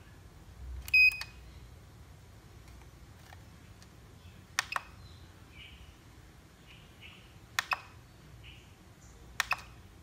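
RC pistol-grip transmitter switched on: a click and a short high beep about a second in. Then three sharp double clicks a few seconds apart, the transmitter's switch pressed and released, with faint short chirps between them.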